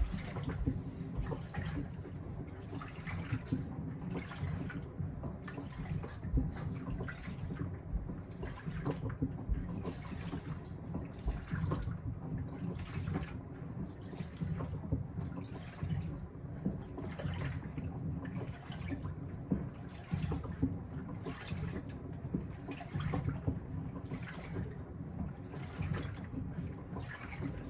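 Panasonic top-loading washing machine agitating a load: the pulsator churns the water and laundry back and forth in a regular swish-slosh, about one stroke a second.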